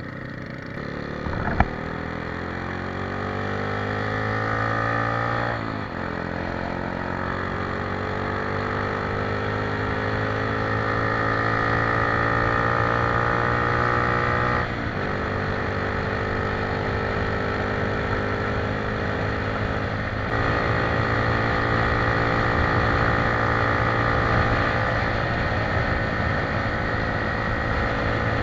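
Motorcycle engine accelerating through the gears. Its pitch climbs, falls sharply at each of three upshifts over the first twenty seconds, then runs steady at cruising speed. A single sharp knock comes near the start.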